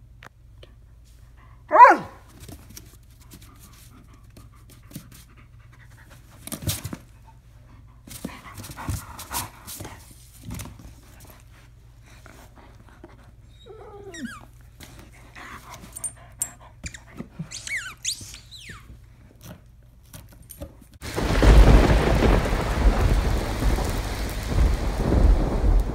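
German Shepherd gives one sharp bark about two seconds in, followed by panting and small scuffs and clicks. About 21 seconds in, a loud, deep rumbling sound effect starts and carries on to the end.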